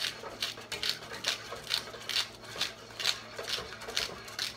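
Rhythmic scraping of a utensil stirring a thickening soy-milk béchamel in a saucepan, about two to three strokes a second.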